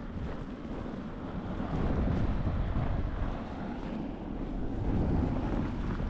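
Blizzard wind gusting against the microphone: a low rushing noise that swells about two seconds in and again near five seconds.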